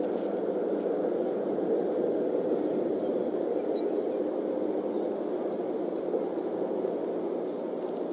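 Steady, even rushing background noise picked up by an outdoor nest camera's microphone.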